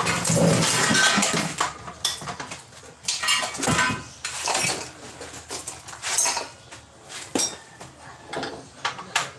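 Metal tools and engine parts clinking and knocking at irregular moments, the sound of hand work on a car engine being taken apart for an overhaul.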